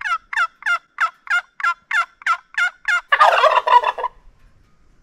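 Turkey sounds: a run of about ten evenly spaced yelps, about three a second, then a rattling gobble for about a second that ends about four seconds in.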